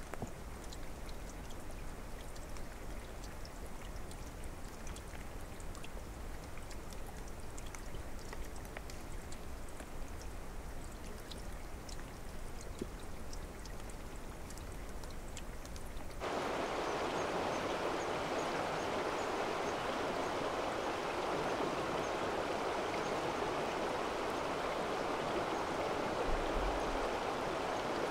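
Running stream water: a low rushing with small splashes and drips. About 16 seconds in it cuts abruptly to a louder, denser rush of water.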